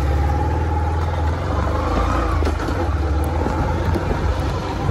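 Motorcycle engine running steadily with a low hum, just started and moving off on a wet road.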